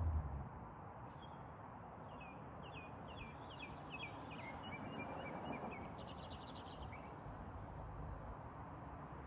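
A small bird chirping: a run of short high chirps that ends in a quick trill a few seconds in, over faint steady outdoor background noise.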